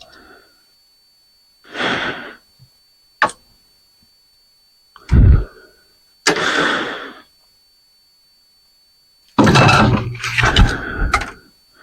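Hand work on a ceiling fan being taken apart: intermittent scraping and knocking of metal parts, with a sharp click about three seconds in and a longer, louder stretch of rattling near the end.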